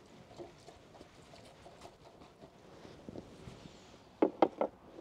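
Aquarium net working through duckweed in a rainwater-filled trug: faint light rustling and pattering, then three quick, sharp knocks near the end.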